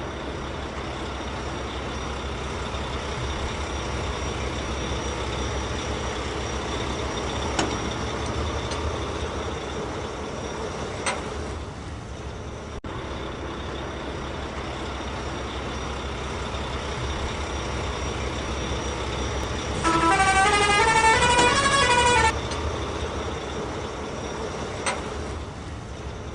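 A truck engine running steadily. Near the end a multi-note musical horn plays a short rising-and-falling tune for about two seconds.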